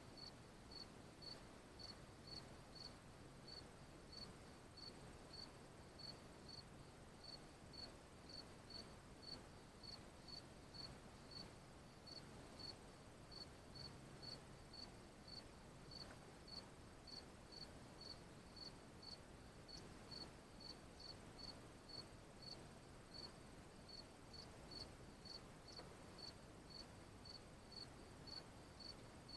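Insect chirping faintly: short high chirps repeating steadily about two a second over a low hiss.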